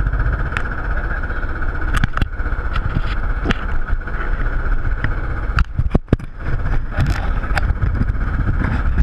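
Tatsu flying roller coaster train climbing its chain lift hill: a steady low rumble with a constant mechanical whine, broken by irregular sharp clacks.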